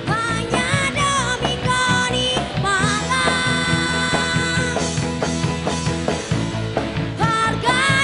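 Live rock band playing: a woman sings lead into a microphone over drums and electric guitars, holding one long note about three seconds in.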